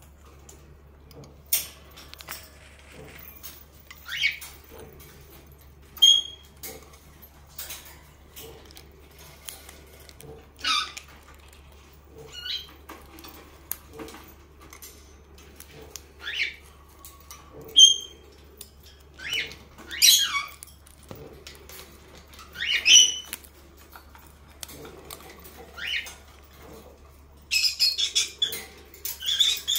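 Senegal parrot chewing and cracking thin wooden sticks with its beak: irregular sharp clicks and crunches every second or two, with a quick flurry of scratchy sounds near the end.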